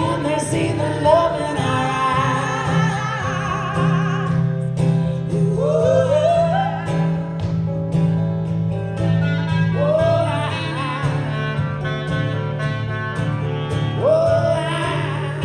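Live folk music: a lead voice sings long wordless notes, each sliding up into a held tone, over strummed acoustic guitar and a steady low accompaniment.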